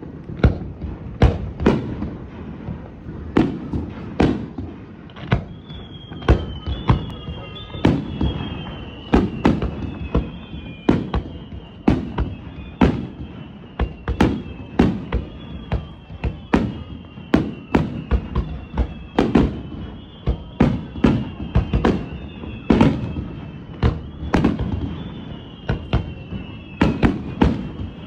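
Aerial fireworks bursting in a rapid barrage, about two to three bangs a second with a deep echoing boom after each. From about five seconds in, overlapping high whistling tones that slide down in pitch run under the bangs.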